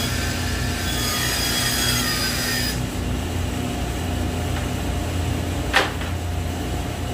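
Table saw running steadily while its blade cuts through a white-faced cabinet panel; the high cutting sound stops about three seconds in and the saw keeps running unloaded. A short sharp knock near the end.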